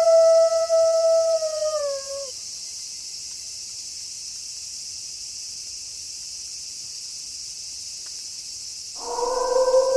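A wolf howl held on one steady pitch bends down and ends about two seconds in, over a steady high chorus of night insects such as crickets. About a second before the end, a second, lower howl begins.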